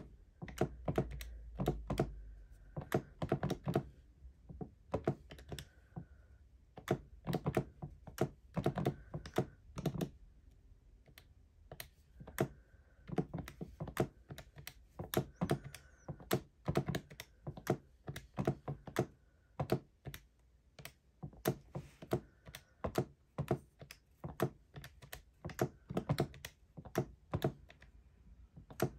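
Calculator keys being pressed in quick, irregular runs of clicks and taps, with short pauses between entries while figures are added up.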